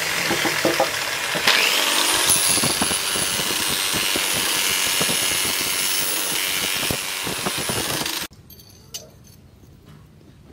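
Electric angle grinder with a sanding disc grinding the edge of a leaf-spring steel axe head: a steady high motor whine over the hiss of the disc on the steel. It cuts off suddenly about eight seconds in.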